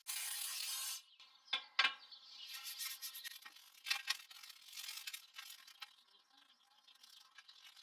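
A steady hiss for about the first second, then a brush scrubbing dust off PC components in irregular scratchy strokes.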